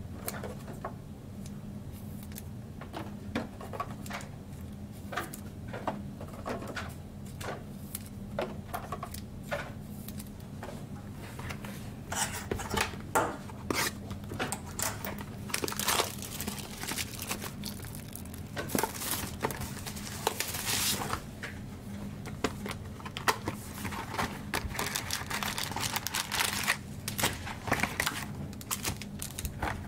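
Plastic and foil wrapping of trading card packs being torn open and crinkled, with scattered clicks and taps of cards being handled; the crinkling grows busier and louder about halfway through.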